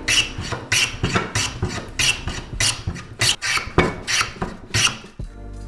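Hand plane shaving wood, about two quick rasping strokes a second, as glued-in wooden strips are planed flush with a window frame.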